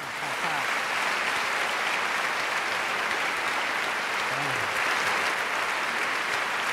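A large theatre audience applauding, dense and steady, swelling up in the first second.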